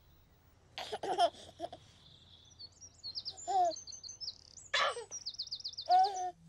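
A baby giggling in short bursts over high, quick chirping and trilling birdsong, with giggles about a second in, around three and a half seconds, near five seconds, and near the end.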